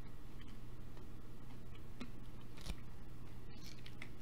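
Close-miked eating: quiet chewing of salad with a few light clicks of a metal fork against the plate, over a steady low hum.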